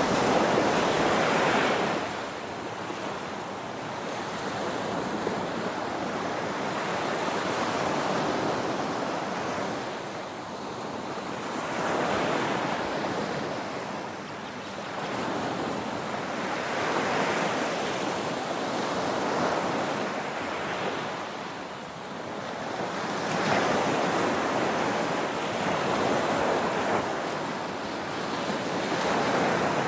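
Small ocean waves breaking and washing up a sandy shore: a steady surf hiss that swells and ebbs every few seconds, with stronger swells near the start, around twelve and seventeen seconds in, and near the end.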